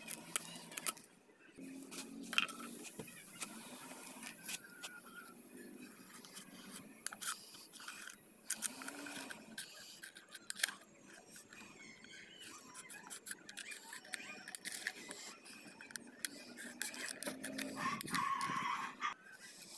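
Faint crackling and clicking of a thin clear plastic drink bottle being handled: its label peeled off, then scissors snipping through the plastic.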